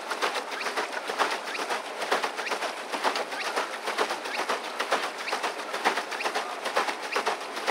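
Pedal boat's paddle wheel churning the water: a dense, irregular patter of small splashes and slaps as the boat is pedaled.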